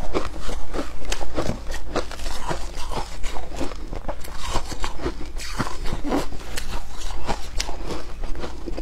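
Close-miked crunching of shaved ice: a metal spoon digging through the ice and mouthfuls being bitten and chewed, a dense, irregular run of crisp crackles.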